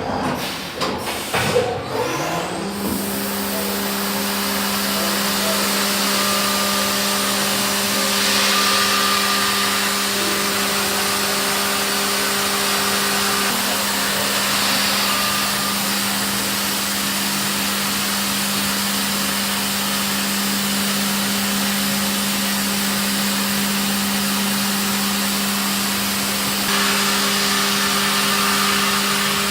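A few knocks in the first two seconds, then the spindle of a Haas VF-2SS CNC mill winds up to a steady high hum over a constant hiss from cutting and coolant while it machines aluminum.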